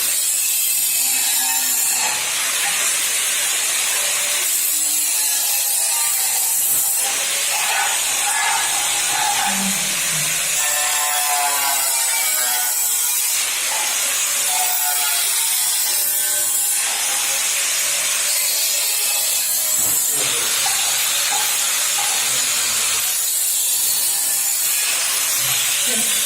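A loud, steady hiss, with faint voices under it now and then.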